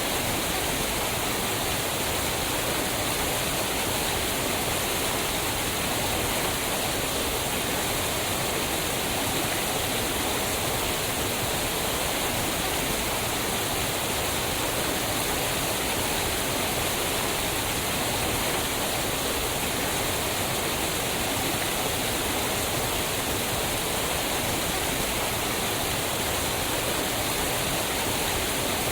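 Waterfall: a steady, unbroken rush of falling water with no changes.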